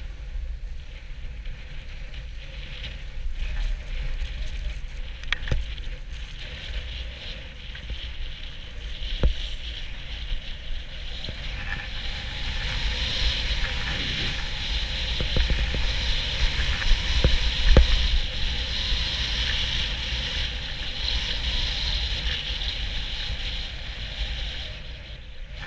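Wind rumbling on an action camera's microphone while riding down a groomed slope, with the hiss of edges sliding over packed snow that grows much louder about halfway through and eases off near the end. A few sharp knocks cut in, from bumps in the snow.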